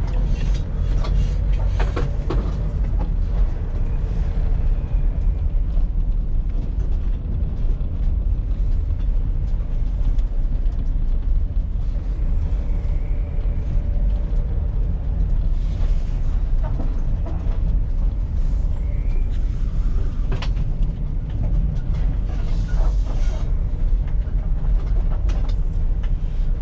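Vehicle driving along: a steady low engine and road rumble, with a few faint rattles and knocks.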